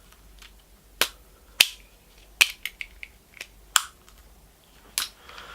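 A series of about eight sharp, separate clicks at irregular spacing, starting about a second in, like small hard parts being handled and snapped together.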